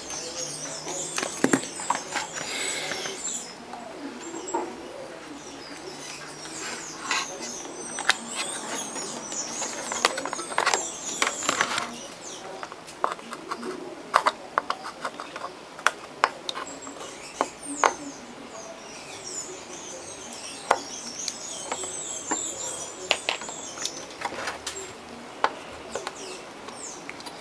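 Small birds chirping repeatedly in the background, with scattered sharp clicks and taps as a circuit board is handled and soldered on the bench.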